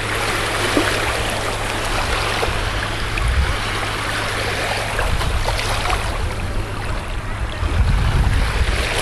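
Shallow ocean surf washing in and out over sand at the water's edge, a steady hiss and wash. Wind starts buffeting the microphone with a low rumble near the end.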